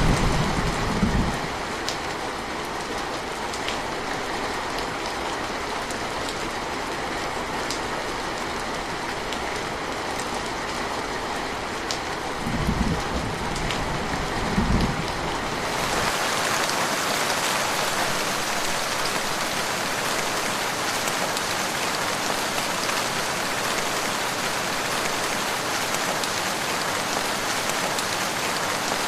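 Steady rain with scattered individual drops, as a low rumble of thunder dies away in the first second or so. Two brief low thunder rumbles come about halfway through. About two-thirds in, the sound switches abruptly to a brighter, hissier downpour with no low rumble underneath.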